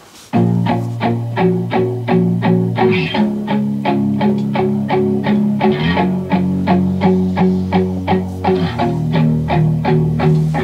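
Music from a CD played on a CEC TL5100 belt-drive CD transport, starting right after a brief gap at a track change, with a steady, quick pulse of notes.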